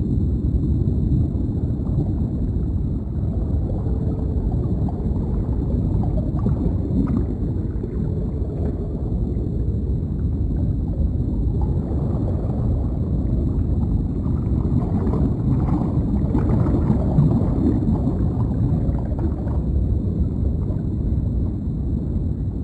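Deep underwater ambience: a steady, low, muffled rumble of water, with faint bubbling gurgles now and then.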